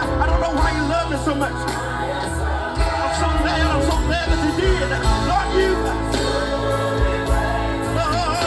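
Live gospel music: singing voices over a band with steady bass.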